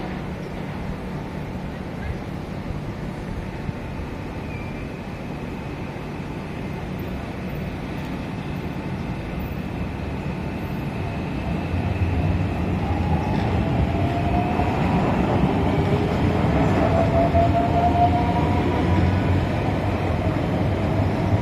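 SMRT C151 electric metro train accelerating away from a station on an elevated track. Steady running noise with a motor whine that rises in pitch as it gathers speed, getting louder about halfway through as the train passes.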